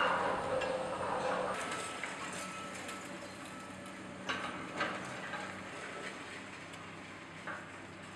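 Demolition machinery running with a steady low engine drone. A loud crash comes at the start and sharp clanks follow about four, five and seven and a half seconds in, as debris is broken and moved.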